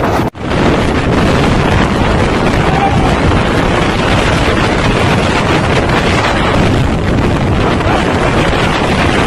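Violent tornado wind buffeting a phone microphone: a loud, steady rush that drops out for a moment near the start.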